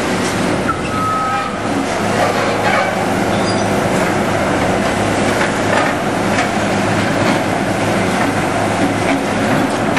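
Heavy demolition machinery working on a stadium's concrete stands: a steady diesel drone with scattered knocks and scrapes of material being broken, and a brief high squeal about a second in.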